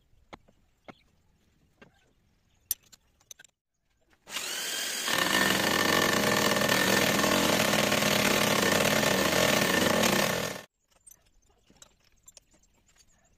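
Abrasive cutting disc spinning up with a rising whine about four seconds in, then grinding into a steel bar held in a lathe's four-jaw chuck for about five seconds before cutting off abruptly. A few light metallic clicks from handling the setup come before it.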